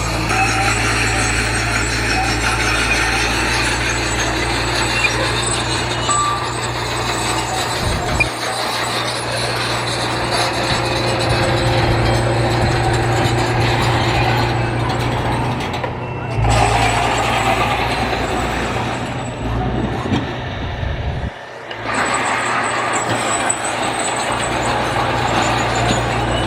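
Heavy diesel construction machinery running with a steady, low engine note and the clatter and noise of working machines. The sound changes abruptly several times, as between separate shots, with a brief drop about three quarters of the way through.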